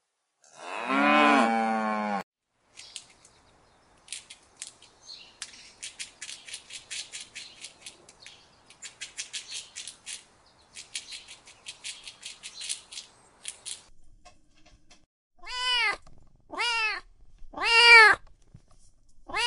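A cow gives a short low moo that falls in pitch. Then meerkats chirp and squeak, a rapid run of thin high calls, for about ten seconds. Near the end a kitten meows several times, each meow rising and falling.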